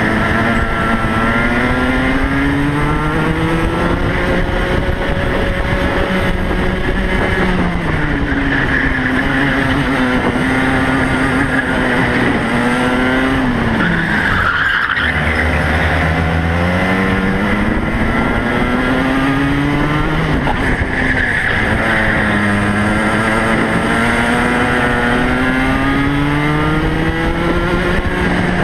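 Racing kart engine heard from on board, its revs climbing on the straights and falling under braking for corners. About halfway through the revs drop lowest for a tight corner, then climb steadily again.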